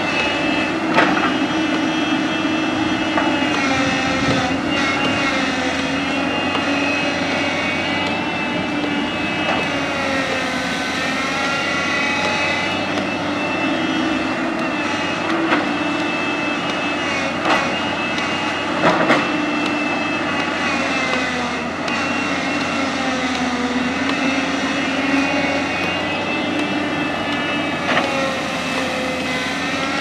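JCB crawler excavator's diesel engine running under load, with a whine that rises and falls as the boom and bucket move. A few sharp knocks come through as the bucket works the hillside.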